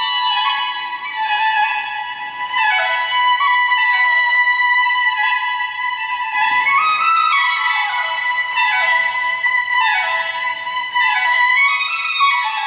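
Classical violin music played through a portable Bluetooth speaker: a held high note, then a falling phrase repeated about every two seconds.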